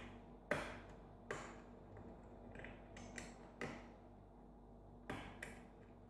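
Lock picks and a tension wrench clicking and clinking in a Sargent five-pin mortise lock cylinder as the tension is released and reset to turn the plug clockwise. About six or seven sharp, light metallic clicks come at irregular intervals.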